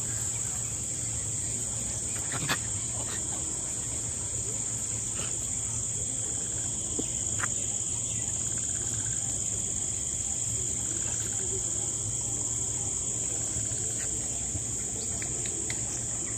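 Steady, high-pitched insect chorus, with a faint knock about two and a half seconds in and another about seven and a half seconds in.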